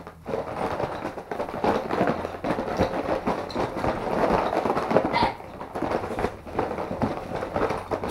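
Dense rustling and crackling handling noise, with many small scratches and clicks, as puppets and a cardboard tissue box are shuffled about on a bedspread.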